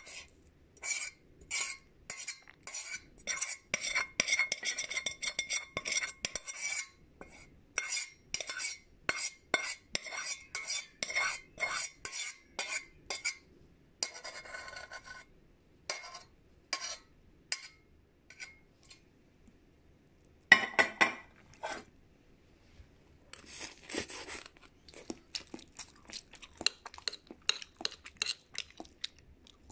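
An eating utensil clinking and scraping against a bowl as food is stirred and scooped: a long run of quick ringing taps for about the first 13 seconds, then two short scrapes, one louder knock about 20 seconds in, and lighter clicking near the end.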